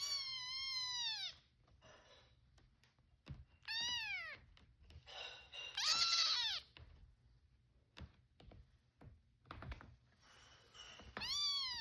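Kittens meowing: about four high-pitched meows that fall in pitch at the end, the one around the middle the longest and loudest, with a few faint knocks between them.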